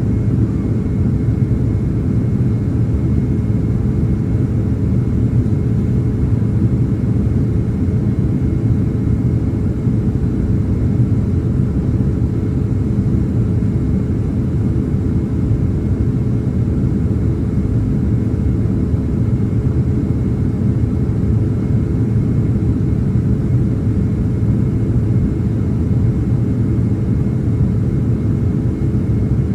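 Boeing 767-300ER cabin noise in flight: a steady low rumble of engines and airflow with a constant hum, unchanging throughout.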